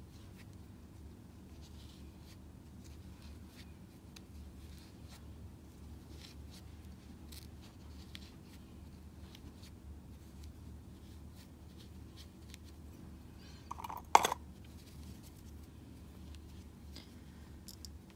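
Faint scratching and rustling of yarn worked with a crochet hook, over a steady low hum, with one sharp click about three-quarters of the way through.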